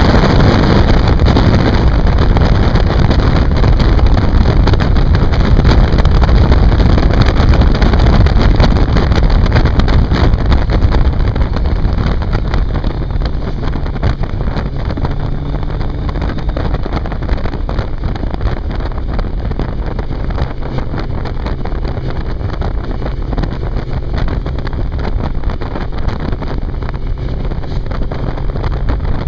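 Motorcycle riding at speed heard from on board: wind buffeting the microphone over the engine's running note. It is louder for the first ten seconds or so, then eases off as the bike slows behind traffic.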